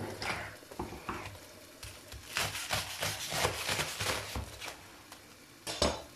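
Knife cutting through a frozen, foil-wrapped roll of parsley on a wooden chopping board: foil crinkling, then a run of short cutting strokes, with one sharp knock near the end.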